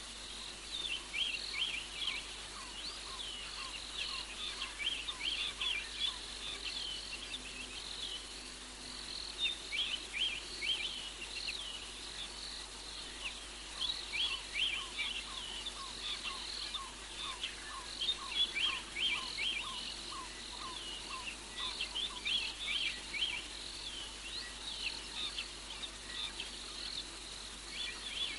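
Night chorus of small animals chirping: quick runs of short, high, falling chirps repeating every second or two, with a fainter, lower run of chirps joining partway through, over a steady outdoor hiss.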